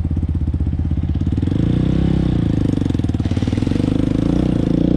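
Engine of a 1998 Dodge Ram 2500 pickup running with a rapid low pulse, picking up a little in revs about a second and a half in.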